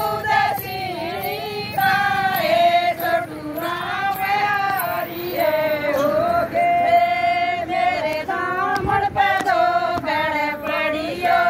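A group of women singing a Haryanvi badhawa folk song together, in long sung phrases whose melody rises and falls.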